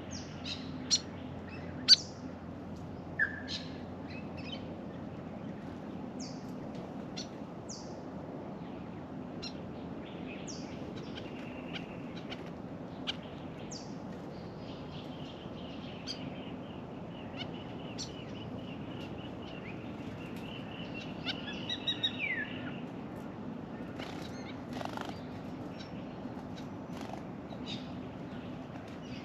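Mixed birdsong from several Australian birds: scattered short, high chirps and calls, with a few loud sharp calls in the first two seconds and a longer wavering trill in the middle. A steady low hum runs underneath.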